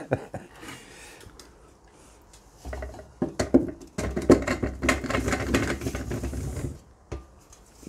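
Potatoes tipped out of a stainless steel colander into a wicker basket: from about three seconds in, a few seconds of many quick knocks as the tubers tumble against each other and the metal.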